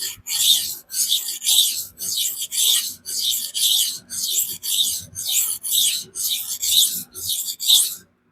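Magnamax-steel knife blade scraping back and forth on a 400-grit vitrified diamond sharpening stone, a steady run of hissing strokes about two a second. The edge is being ground down to remove its slightly convex factory bevel.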